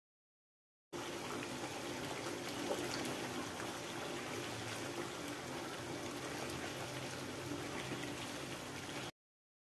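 Coconut-milk rendang sauce with boiled eggs and potatoes simmering in a nonstick frying pan as a spatula stirs it, a steady bubbling hiss. It starts about a second in and cuts off suddenly near the end.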